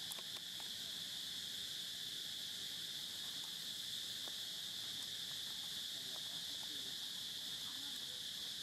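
A steady, high-pitched insect chorus, one unbroken drone, with a few faint clicks.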